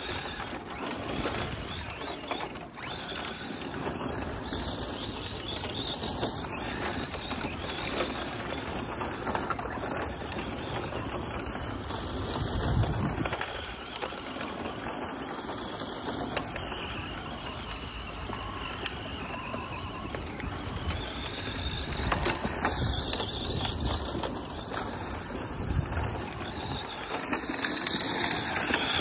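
ARRMA Mojave 4S RC truck's brushless electric motor and drivetrain whining, rising and falling in pitch as it accelerates and slides on loose dirt, with a few louder bursts.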